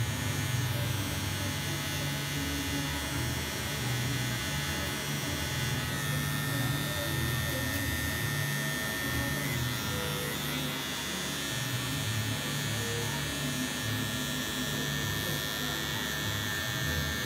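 Cordless electric hair clippers running steadily while trimming short hair close at the back of the head.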